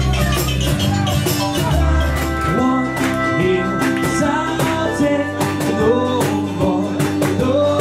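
Live band music: strummed acoustic guitar and accordion playing together over a steady beat of sharp percussive strokes.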